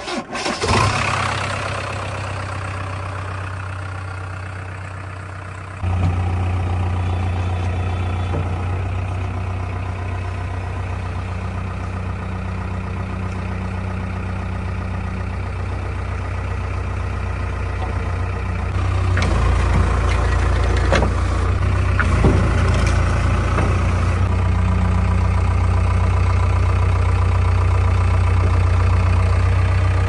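JCB 3DX Plus backhoe loader's diesel engine starting about half a second in, then idling with a steady low hum. The engine gets louder in two steps, about 6 and 19 seconds in.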